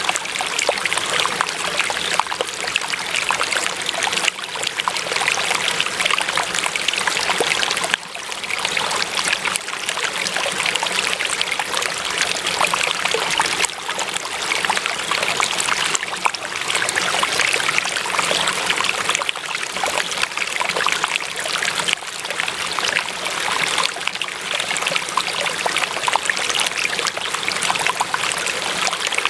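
Water of a small stream running and trickling steadily, with a dense, fine splashing.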